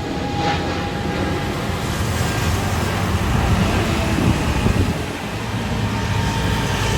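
Airbus A320 jet engines at takeoff power: a steady, loud roar, heaviest in the low end.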